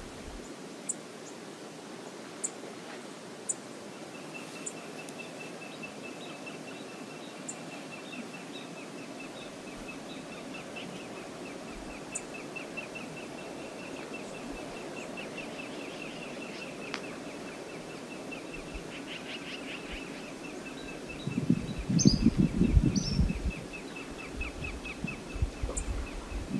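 Steady rush of river water. From about four seconds in, a long, rapid, high-pitched trill runs over it. A louder, low rumble lasts about two seconds near the end.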